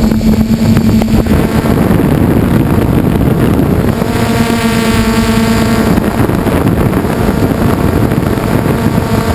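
Traxxas Aton quadcopter's electric motors and propellers humming steadily, heard close up with wind buffeting the microphone. The hum fades, then comes back stronger about four seconds in.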